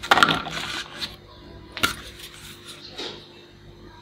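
Hard plastic toys clattering and knocking on a tabletop as a toy binocular set is picked up and handled: a cluster of clicks and rattles in the first second, then single knocks at about two and three seconds in.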